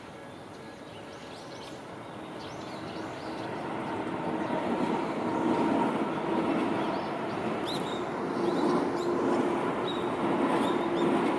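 Tobu Tojo Line electric train approaching, its running noise growing steadily louder, with a steady droning tone over the rumble.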